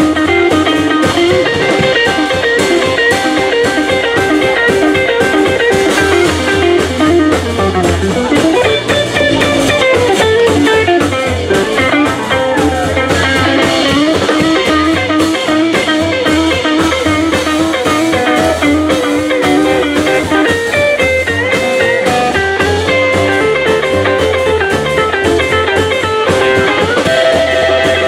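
Live small-band jazz with the hollow-body electric guitar to the fore, over upright bass and drums.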